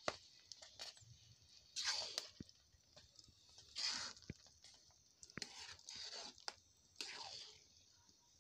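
Metal spatula stirring thick, steaming khichdi in a metal pan: a handful of short scraping strokes, spaced a second or two apart, with light clicks between them.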